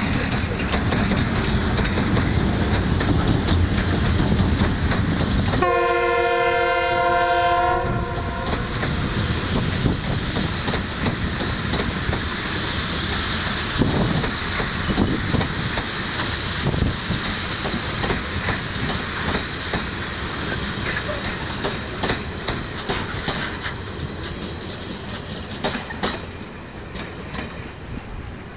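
DF5D diesel-electric locomotive pulling away with its engine running loud, then sounding its horn for about two seconds. Its passenger coaches roll by after that, wheels clicking over the rail joints, and the sound fades as the train moves off.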